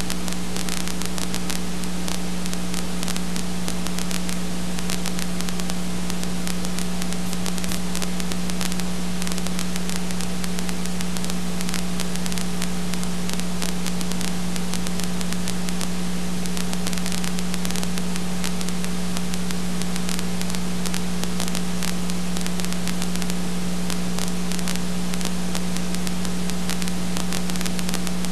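Steady hiss and electrical hum with a constant low drone and nothing else on the track: the empty soundtrack of a silent home-movie film transfer.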